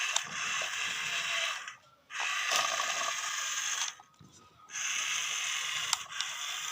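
Battery-powered toy wheel excavator's small electric motors and plastic gears whirring, starting and stopping three times with short pauses between.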